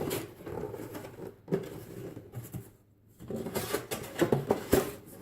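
Cardboard box being folded and fitted together by hand: irregular rustling, scraping and light knocks and clicks, with a brief lull about three seconds in.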